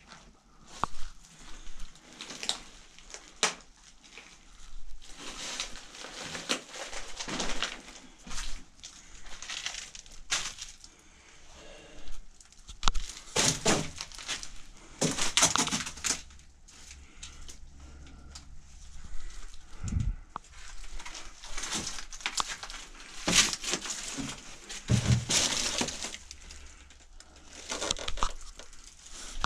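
Footsteps crunching and scuffing over debris, in irregular bursts with the odd sharp click.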